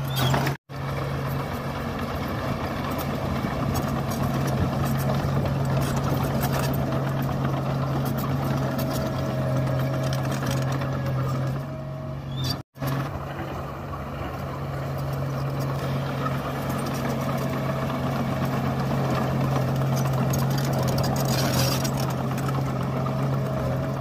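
Komatsu crawler bulldozer's diesel engine running steadily under load as it pushes rocky soil, with a constant low hum and the rumble and grind of tracks and stone. The sound cuts out abruptly twice for a moment.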